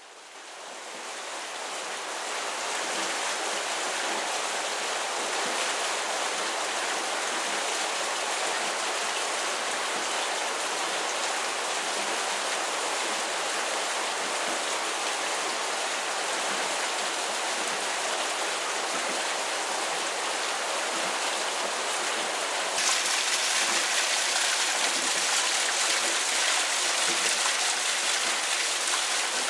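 Water rushing and splashing at a mill's water wheel, a steady hiss with no rhythm in it. It fades in at the start and becomes louder and brighter about three quarters of the way through.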